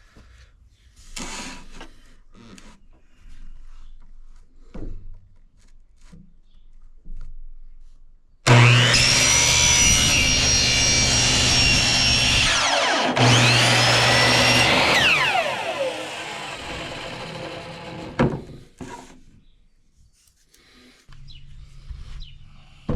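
Electric miter saw cutting PVC pipe: the motor starts suddenly with a high steady whine, dips briefly and restarts, then winds down with a falling whine. Small handling knocks and scrapes come before the cut and a knock after it.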